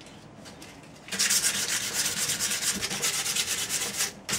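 Hand sanding of the ash chair's wood to take off pencil marks: rapid back-and-forth rubbing strokes that start about a second in and break off briefly near the end.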